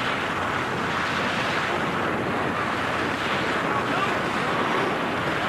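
Steady, rushing wind noise on the microphone, an even roar with no breaks.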